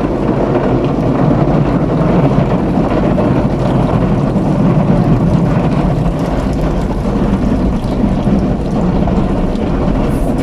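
Automatic car wash working over the car, heard from inside the cabin: a loud, steady rush and rumble of water spray and washing machinery against the body and windows.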